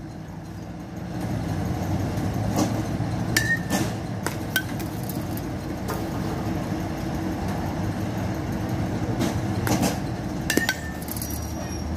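Bat striking pitched balls with a sharp crack and a brief ringing ping, twice, a few seconds in and near the end, among lighter knocks, over a steady low hum.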